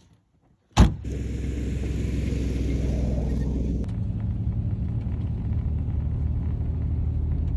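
A sharp thump about a second in, then a van's engine running steadily.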